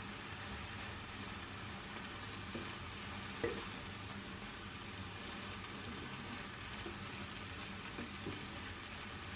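Food sizzling in a frying pan, a steady hiss, with a few light knocks of a utensil against the pan, the loudest about three and a half seconds in.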